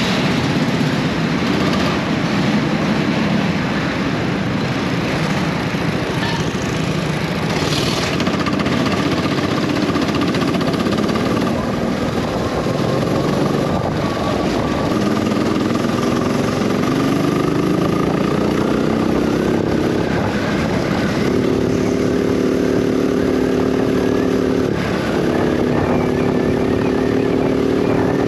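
Go-kart engine heard onboard over heavy wind noise, its pitch climbing as the kart accelerates and then holding steady, with a short break in the engine note near the end.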